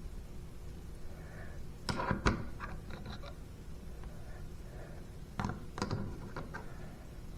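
Long-nosed pliers clicking and scraping against a sink's pop-up drain while pulling out hair and grime, in two short clusters of sharp clicks, about two seconds in and again around six seconds.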